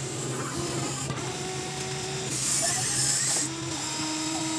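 Huina RC excavator's electric gear motors whining as it dumps, swings its cab and lowers its arm, in short steady-pitched runs that start and stop several times. About halfway a rushing hiss lasts about a second, the loudest part.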